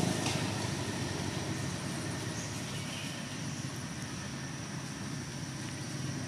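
Steady low rumble of outdoor background noise, easing down at the start, with a faint high steady whine above it.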